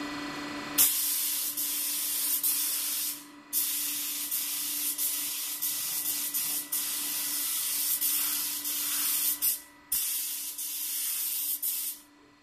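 DeVilbiss GTi Pro spray gun hissing as it lays on blue two-pack base coat. There are three long passes, with the trigger let go briefly twice: about three seconds in and again near ten seconds.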